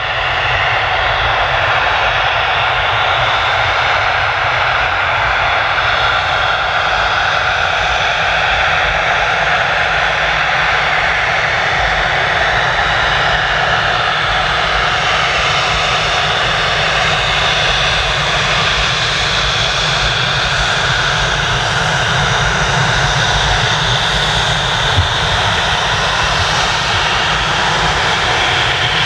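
Gulfstream V business jet's two Rolls-Royce BR710 turbofans running steadily as the jet taxis. The engine noise holds at an even level throughout.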